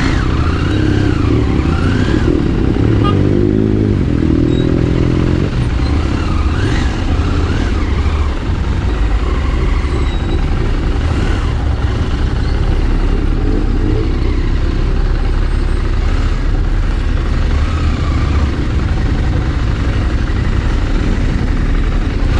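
KTM 890 Adventure's parallel-twin engine running at low speed in stop-and-go traffic, mixed with the steady rumble of cars and a bus close alongside.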